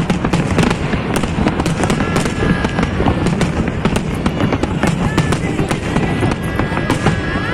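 Fireworks and firecrackers going off in a dense, continuous barrage of bangs and crackles, with a few thin whistling tones from about two seconds in.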